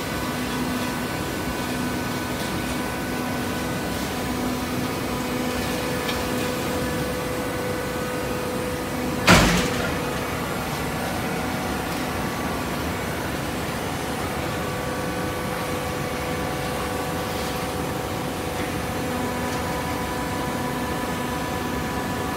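Hydraulic horizontal baler running: a steady mechanical hum with several steady tones, and one sharp bang about nine seconds in.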